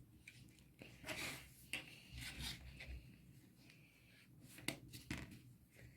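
Faint scraping and rubbing, with a few sharp clicks near the end, as the casing of a Samsung Galaxy GT-S5360 phone is pried open.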